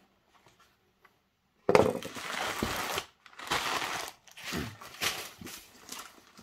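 Crumpled newspaper packing rustling and crinkling as hands dig through it in a cardboard shipping box. It starts suddenly about a second and a half in and comes in several loud spells.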